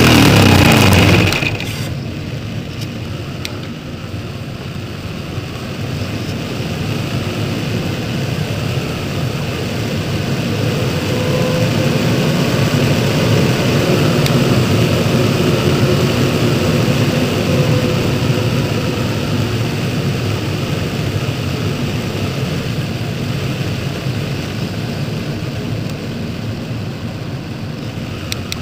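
A Sig Kadet Senior model plane's engine running with falling pitch and cutting out about a second in: the engine dying after its exhaust manifold broke. Then only airflow rushing past the gliding airframe with the engine dead, swelling and easing with the plane's speed.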